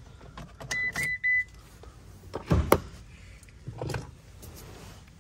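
Ram ProMaster City's dashboard warning chime beeps a few times about a second in, with the driver's door standing open. Then comes a loud thump and a softer knock as someone climbs out of the driver's seat.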